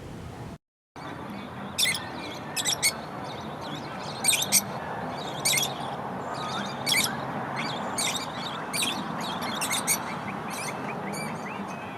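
Birds chirping: short, sharp, high calls repeating every half second to a second over a steady background hiss. The sound drops out completely for a moment under a second in.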